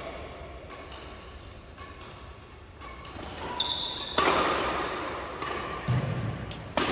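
Badminton racket strikes on a shuttlecock during a doubles rally: sharp hits every second or so that echo around the hall, the loudest about four seconds in and again near the end.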